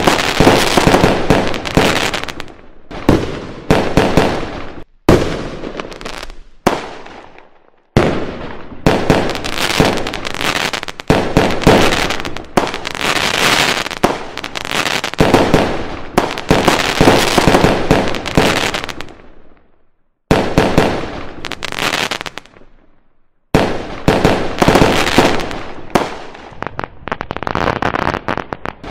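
Fireworks going off in dense volleys: rapid overlapping bangs and crackling, breaking off briefly a few times before starting again.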